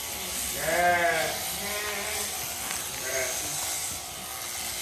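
Sheep bleating during shearing: one longer bleat about a second in, then shorter bleats around two and three seconds. Underneath is a steady buzz from the electric shearing clippers.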